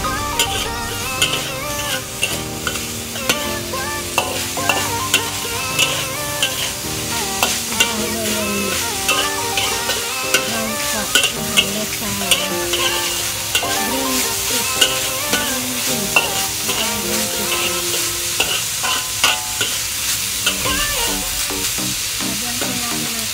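Green beans and minced pork stir-frying in a hot wok: steady sizzling with frequent sharp scrapes and taps of a metal spatula against the pan. Background music with a melody runs underneath.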